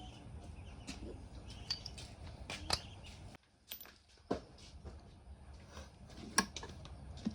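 Scattered clicks and knocks of hand tools and metal parts being handled during motorcycle engine repair, with three sharper clinks, one of them near the end, over a low background rumble.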